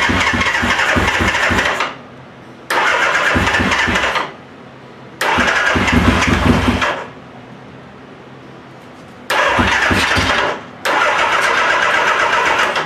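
Suzuki GS550 inline-four engine being cranked on its electric starter in five bursts of about one and a half to two and a half seconds, with short pauses between them. The engine does not keep running.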